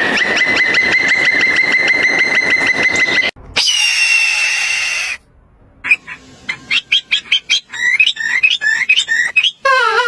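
A string of separate animal calls cut one after another: a high call pulsing rapidly for about three seconds, a single held high call, a quick run of chirps, then a wavering call near the end.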